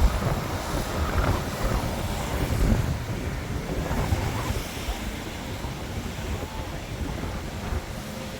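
Strong wind buffeting the microphone: a gusty low rumble, heavier in the first few seconds and easing a little after.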